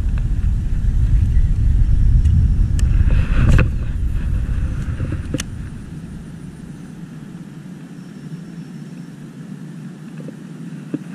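Strong wind buffeting the microphone, a loud, uneven low rumble that dies down about five or six seconds in and leaves a quieter steady hiss. A few sharp clicks come in the middle.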